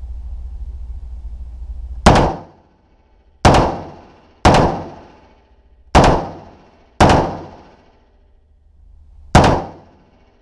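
M4 carbine (5.56 mm) firing six single shots at uneven intervals, each crack trailing off in the echo of an indoor range.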